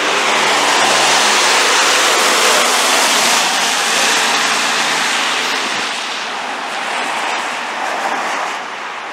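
A vehicle passing close by on a wet road: tyre hiss swells over the first few seconds, then fades away after about six seconds.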